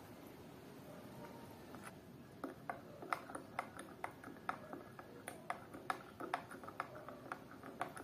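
Spoon stirring a drink in a glass mug, clinking against the glass in quick, uneven ticks about three times a second from about two seconds in, after a soft swirl of liquid at first.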